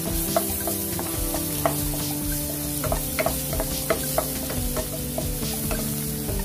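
Chopped garlic sizzling in hot oil in a pot while a wooden spatula stirs it, with sharp taps and scrapes of the spatula against the pot every half second or so; background music plays underneath.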